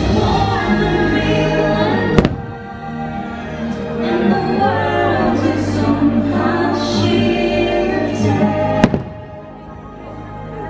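Fireworks show soundtrack with voices singing over the music, broken by two sharp firework bangs, one about two seconds in and another near nine seconds.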